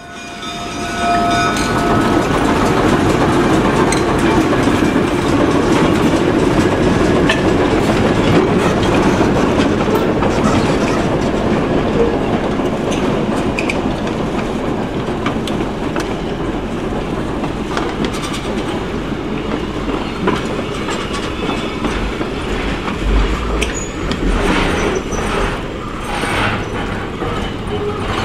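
Diesel switcher locomotive hauling passenger coaches slowly past: a steady rumble of engine and rolling wheels, with a horn note dying away in the first second. Wheels clack over the rail joints as the coaches pass, more sharply near the end.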